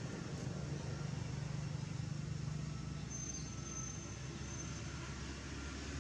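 A steady low rumble under an even background hiss, with a thin high tone sounding for a couple of seconds around the middle.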